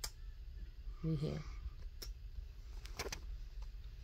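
A few short kissing smacks on a kitten's fur, spaced out over a few seconds, over a faint steady low hum.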